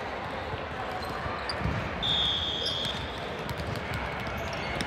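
Volleyball play: thumps of the ball and feet over a haze of chatter, with a referee's whistle blown once for about a second, about two seconds in.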